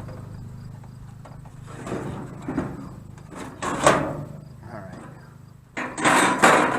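A cardboard box and its packing being handled as a diesel heater is worked out of it: sliding, scraping and rustling in a few bursts, the loudest near the end, over a steady low hum.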